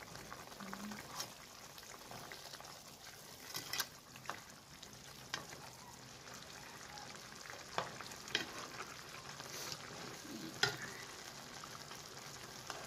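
Tomato sauce simmering with a soft steady crackle in a nonstick pan around fried fish. A nylon slotted spatula clicks and scrapes against the pan now and then as sauce is spooned over the fish.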